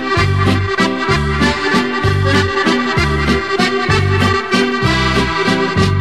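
Instrumental background music: a lively tune with many sustained pitched notes over a bass note that bounces about twice a second.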